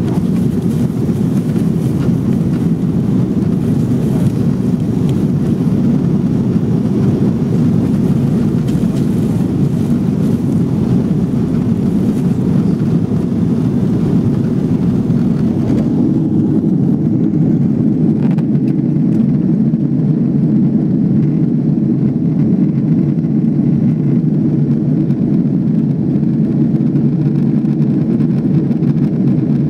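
Cabin noise of an Airbus A340-600 climbing out: a steady low roar of airflow and its four Rolls-Royce Trent 500 engines. About halfway through, the higher hiss fades and leaves the low roar.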